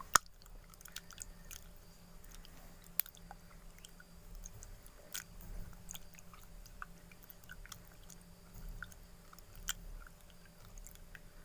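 Tamarind pulp being mashed in warm water: quiet wet squishing, with a few sharp clicks.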